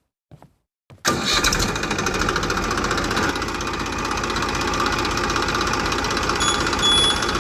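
A small motor on a homemade mini tractor starts abruptly about a second in and runs steadily at a constant speed.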